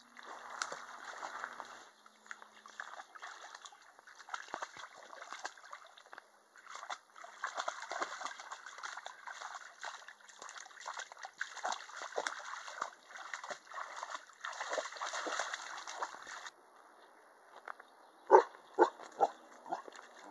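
Irish Wolfhound puppy splashing and pawing in shallow water: irregular sloshing and splatters that stop suddenly about sixteen seconds in. Near the end comes a quick run of five or six sharp knocks, louder than the splashing.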